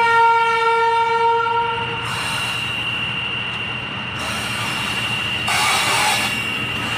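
Horn of a WAG-12 electric freight locomotive sounding one pitched blast about two seconds long. It is followed by the noise of the freight train running over the rails, which swells around five to six seconds in.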